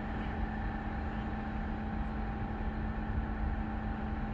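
A steady machine hum with several constant tones over a low rumble.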